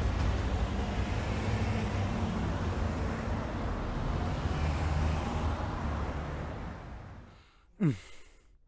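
Road traffic noise, a steady rumble of passing vehicles, which fades out near the end, followed by a short falling sweep.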